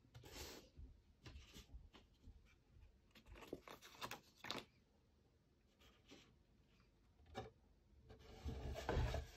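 Faint handling noise: a soft goggle case and a cardboard box being moved and rubbed on a desk mat, in scattered rustles. The longest and loudest rustle comes near the end, as the box is brought in.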